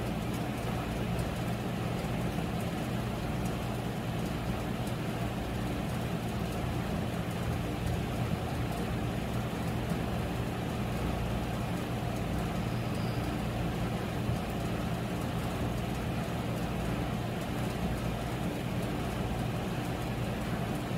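A steady, unchanging low mechanical hum over a constant background noise.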